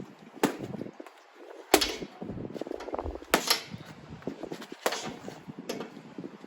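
Boxing gloves landing punches on a punch bag: five hard hits at uneven spacing, roughly a second or so apart, with softer rustling between them.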